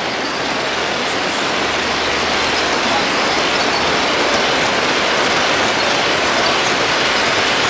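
Model passenger train cars rolling past on the track: a steady whir and rumble of wheels on rail that grows a little louder about three seconds in.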